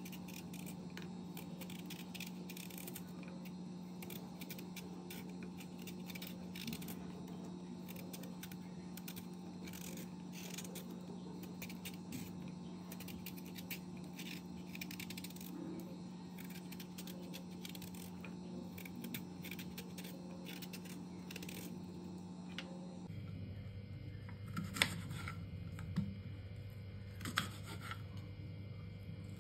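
A small kitchen knife scraping and stripping the peel off a raw green banana, faint short scrapes over a steady low hum. Near the end the knife cuts through the banana onto a wooden chopping board: three sharp knocks.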